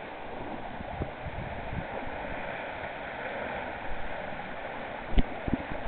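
Water rushing and splashing along the hull of a small sailboat running downwind through waves, with irregular low thumps and a sharp knock about five seconds in.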